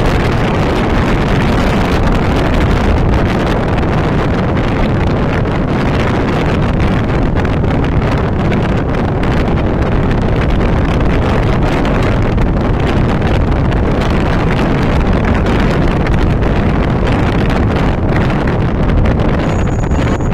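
Steady rush of wind buffeting the microphone, over the road and engine noise of a moving vehicle.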